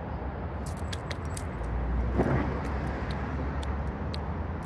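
Steady rumble of road traffic that swells briefly about two seconds in, with scattered light clicking and jingling from beaded charm bracelets as the wrist moves.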